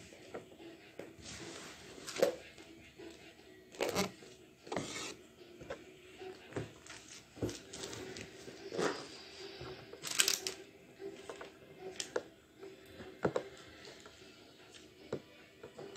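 Hand-sewing sounds: thread rubbing and being drawn through cloth in short swishes, with fabric rustling and small clicks.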